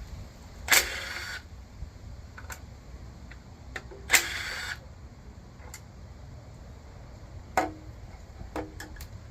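Impact wrench running in two short bursts, spinning oil pan bolts out of a small-block V8. Near the end come a few sharp metallic clinks.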